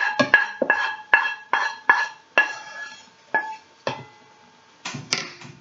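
A wooden spoon scraping and knocking melted chocolate and butter out of an enamelled saucepan into a stainless steel mixing bowl. The knocks are quick for about two and a half seconds, two or three a second, each with a short metallic ring, then thin out to a few single knocks near the end.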